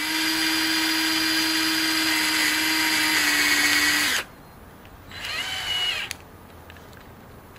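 Cordless drill motor running at a steady speed, spinning a threaded steel rod against a 5 mm bit that reams a hole in its end. It stops about four seconds in, followed by a short burst that speeds up and winds down as the bit nears the bottom of the hole and jams.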